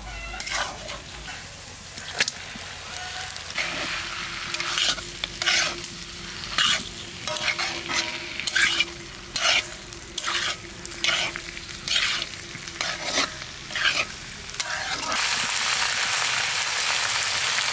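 A metal spatula scraping and stirring chicken pieces and onions frying in a black kadai, in short strokes about once a second. From about fifteen seconds in, a steady, louder sizzle takes over.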